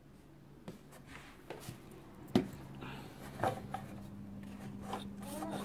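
Small wooden craft-stick model pieces handled on a work surface: scattered light clicks and taps with short bits of rubbing, the sharpest click about two seconds in. A faint steady hum sits underneath from about halfway.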